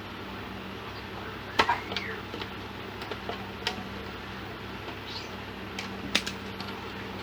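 A steady low hum with a handful of short, sharp clicks and taps, the loudest about a second and a half in and another about six seconds in, as of small tools and parts being handled on a workbench.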